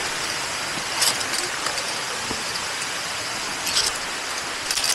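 A steady rushing hiss, with a few brief metallic clinks of caving gear on the rope: one about a second in and a short cluster near the end.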